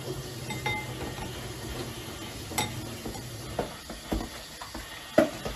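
A pot of seafood stew simmering and steaming on the stove, with a steady hiss and bubble, while utensils and containers clink and knock against it a few times; the sharpest knock comes near the end.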